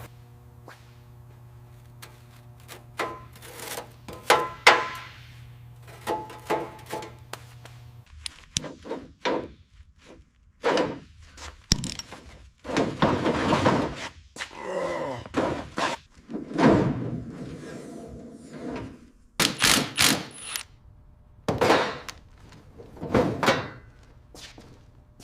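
Irregular series of knocks, thuds and clanks from workshop work on a car body, with some longer scraping clatters among them. A low steady hum underlies the first eight seconds and then stops.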